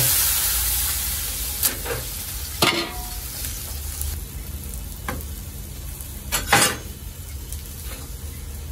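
Fat and minced meat sizzling on a large round steel beryan pan, the hiss loudest at the start and dying down over the first few seconds. Now and then a metal tool knocks and scrapes on the pan, the loudest about six and a half seconds in.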